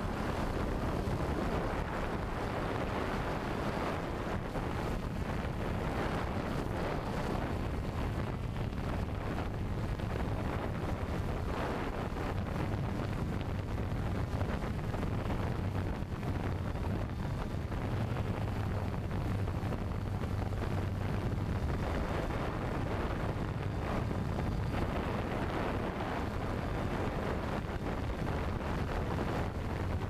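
Steady rushing noise of wind buffeting the camera microphone, heaviest in the low end with a low hum under it.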